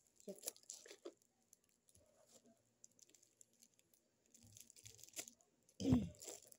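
Plastic wrap crinkling and being cut with scissors as it is taken off a plastic soap holder: scattered crackles and snips, with one louder burst near the end.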